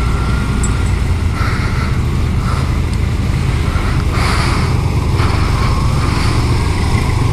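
Yamaha Sniper 150's single-cylinder four-stroke engine running at low road speed in traffic, heard under a steady low wind rumble on the on-bike camera microphone, with passing street and traffic noise rising and falling, loudest about four seconds in.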